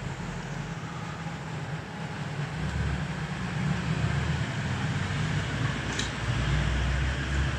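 Low churning rumble from a rebuilt Triumph Daytona 955i fork leg as the damper rod is pumped up and down by hand in its oil, the usual way to bleed air from the cartridge. It swells and fades with the strokes, with a light tick about six seconds in.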